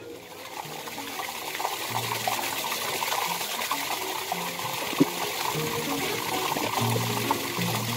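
Water gushing steadily from a PVC pipe tap into a plastic bottle, building up over the first couple of seconds.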